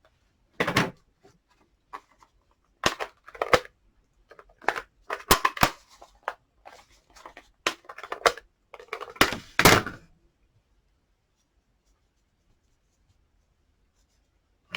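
Irregular clicks, knocks and light rustling as craft supplies are handled and set down on a desk, then near silence for the last few seconds.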